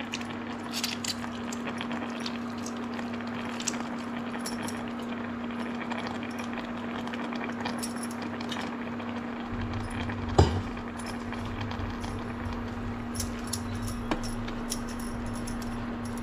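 Pan of greens cooking on an induction cooktop: a steady hum with a faint sizzle. Glass bangles clink lightly now and then, and there is one sharp knock about ten seconds in.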